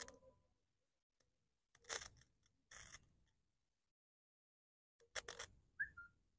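Mostly near silence, broken by a few faint, short crackling scrapes as bare wire ends from a car battery are touched together and shorted to throw sparks into a bottle rocket's IP-solution vapour.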